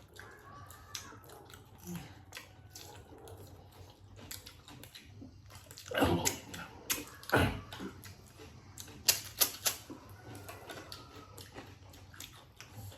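Close-miked eating sounds: chewing and mouth smacking, a steady run of small wet clicks with a few louder bursts about six, seven and a half and nine seconds in.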